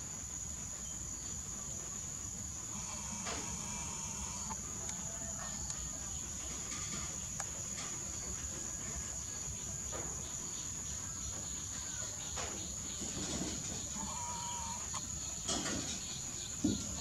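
Outdoor ambience: a steady high-pitched insect drone, with a few short animal calls and a couple of sharp clicks near the end.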